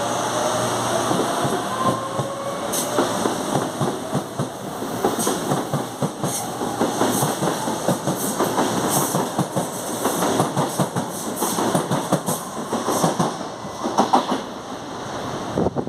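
CAF Série 7000 electric multiple unit pulling out and rolling past, its wheels clicking and clacking in quick succession over rail joints; a rising traction-motor whine fades out in the first second or so.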